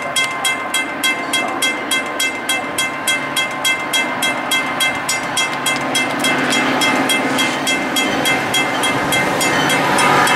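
Grade-crossing warning bell ringing quickly, about three to four strokes a second, while a Metra F40PH diesel locomotive and its train approach. From about six seconds in, the bell is drowned out by the growing rumble of the locomotive and cars.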